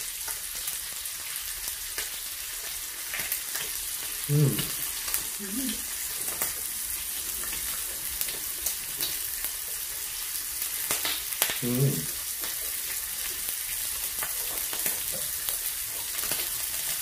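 Pork and bacon sizzling on a tabletop electric grill plate: a steady hiss with scattered small clicks.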